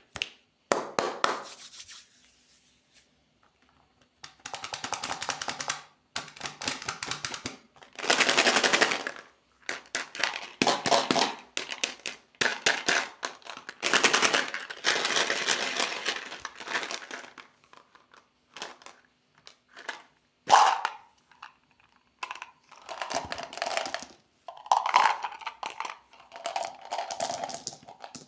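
Plastic candy wrappers and packaging being handled and torn open: dense crinkling and crackling in stretches of a second or two, with short pauses between them.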